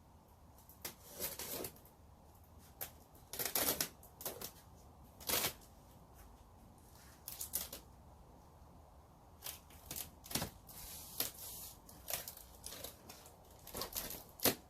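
Large cardboard shipping box being opened and its contents handled: irregular rustling, crinkling and scraping of cardboard and packing material, with a few sharp clicks.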